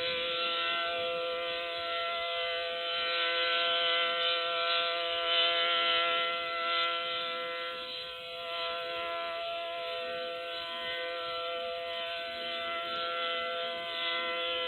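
SD-10 tornado warning siren sounding a steady chord of several held tones, its loudness swelling and fading slowly.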